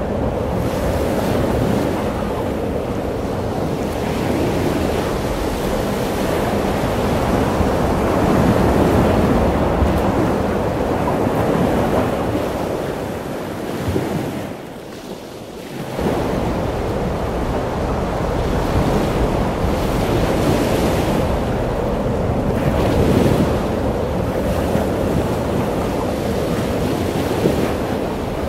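Ocean waves breaking and washing, with wind buffeting the microphone. The sound drops away briefly about halfway through, then returns.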